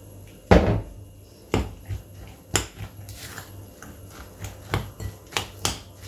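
Metal spoon stirring vegetable fritter batter in a glass bowl, clinking and knocking against the glass at irregular intervals, the loudest knock about half a second in.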